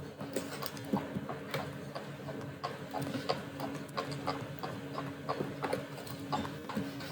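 Rapid, irregular clicking and knocking, several strikes a second, over a steady low hum.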